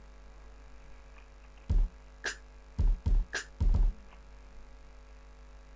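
Drum pattern from Bitwig Studio's Drum Machine playing back through the computer: deep kick drum hits with two sharp snare hits among them. It starts about a second and a half in and stops about four seconds in.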